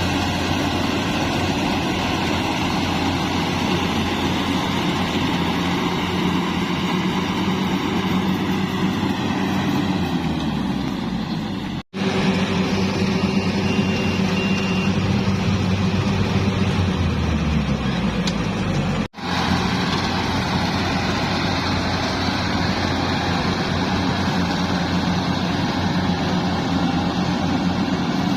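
Yanmar AW70V combine harvester's diesel engine running steadily. Twice its pitch glides lower for a moment, and twice the sound cuts out for an instant.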